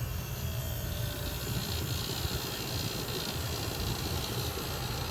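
Vintage GM window air conditioner running just after being switched on: a steady low hum with the even rush of its fan air over it.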